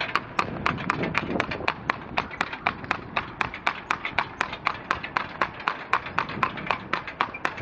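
Hooves of a young piebald filly clip-clopping on a tarmac road as she walks in long reins: a quick, even train of sharp hoof strikes, about four to five a second.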